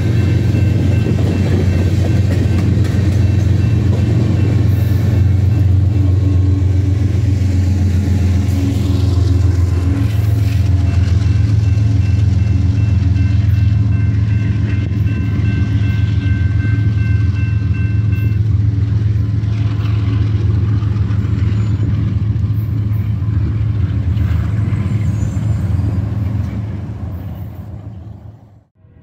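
Covered hopper cars of a grain train rolling past a grade crossing while the crossing's warning bells ring. The bells stop about two-thirds of the way through, leaving a steady low rumble that fades near the end.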